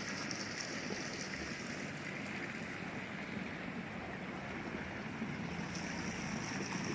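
Steady splashing of thin streams of water pouring from overhead tubes into a tarpaulin fish tank.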